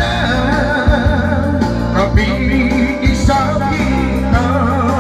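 Karaoke singing: a voice sings with vibrato over a pop backing track with steady bass notes and a drum hit about once a second.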